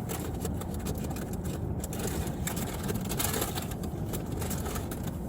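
Steady low rumble of a vehicle with its engine running, heard as from inside a car, with a few light clicks and rustles over it.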